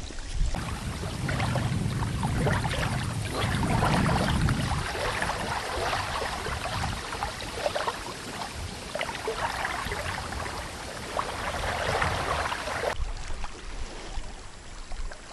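River water splashing and trickling close by: a steady noisy rush with many small splashes.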